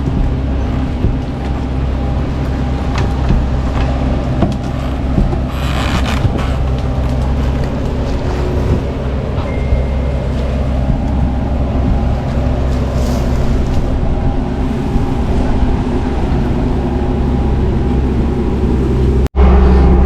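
Bobcat T650 compact track loader's diesel engine running steadily under load, heard from inside the closed cab, with a brief rush of noise about six seconds in. The sound cuts out for an instant near the end and comes back louder.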